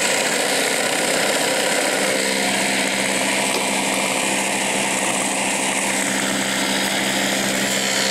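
Steady running of concrete roof-tile making machinery, with a steady low hum joining about two seconds in.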